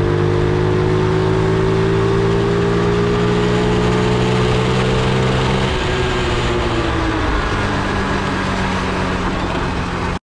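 A 50cc four-stroke Honda Monkey replica mini bike engine running under way. Its pitch climbs slowly, falls a little past halfway, then holds steady, and the sound cuts off abruptly near the end.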